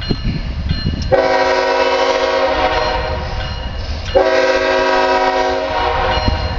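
Locomotive air horn on the CSX stack train sounding two long blasts, a steady chord of several tones. The first starts about a second in and lasts about two and a half seconds; the second, about a second and a half long, follows after a short gap. A low rumble from the approaching train runs underneath.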